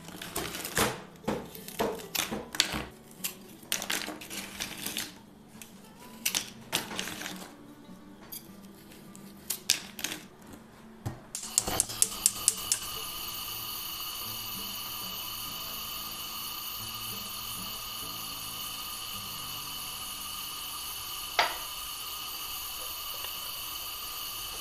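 Knife cutting and tapping through frozen green pepper halves in a frying pan: a run of irregular sharp clicks and knocks. About halfway a quick series of about six clicks, then a steady hiss as the pan of frozen peppers heats on a gas stove, with a single knock near the end.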